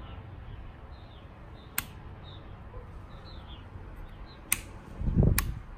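Three sharp clicks from hands working at a dirt bike's handlebar, one a little under two seconds in and two near the end, the last with a low thump, over a low rumble. Small birds chirp faintly and repeatedly in the background.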